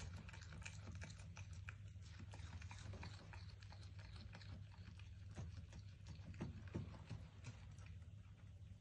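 A baby goat pulling at and chewing fresh grass: faint, irregular small crunches and rustles, over a low steady hum.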